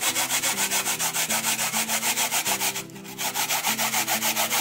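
Peeled raw potato being grated on a hand grater over a plastic catch box, in quick, even back-and-forth rasping strokes, about six a second, with a brief break a little past halfway.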